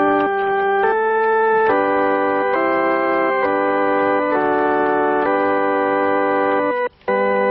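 Pipe organ playing a slow succession of held full chords, changing about once a second, with a brief break about seven seconds in.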